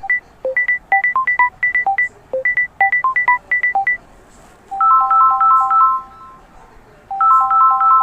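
Samsung Galaxy Tab A ringtone playing: a quick run of short, bright notes for about four seconds. After a brief gap comes a faster repeating figure of chiming notes, which stops and starts again about a second later.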